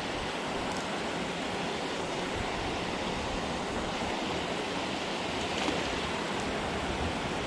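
Water rushing over a dam, a steady, even rush.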